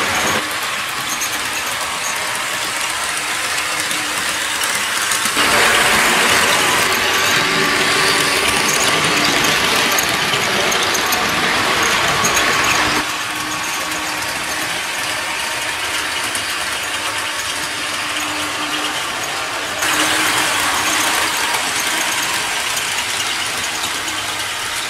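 Bachmann HO scale model train running on its track: the steady whir of the locomotive's electric motor and gears, with the wheels rolling on the rails. It gets louder about five seconds in, drops back about halfway through, and rises again near the end.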